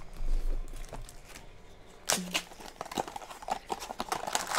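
Scattered light taps and clicks from a small toy figure and its packaging being handled and set down.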